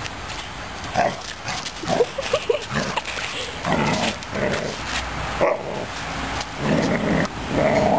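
Newfoundland puppy giving several short, playful barks as it goes after a push broom, over the scrape of the broom's bristles on concrete.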